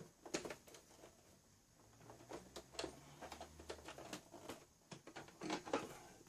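Scattered light clicks and small knocks of cables and parts being handled inside a desktop computer case.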